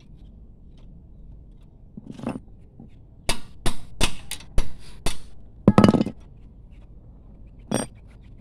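Sharp metallic clinks and knocks of a tool against a Toyota Vios front brake caliper as the caliper is fitted back over the disc: a quick run of about seven strikes in the middle, the loudest near the end of that run, then one ringing clink near the end.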